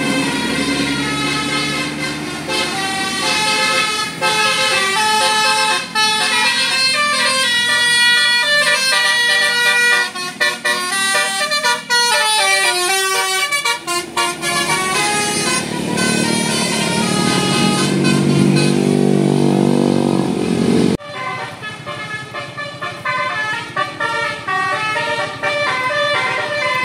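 Musical 'telolet' bus horns of the Basuri type, playing quick tunes of short stepped notes. The tune breaks off abruptly about three-quarters of the way through and a different tune starts.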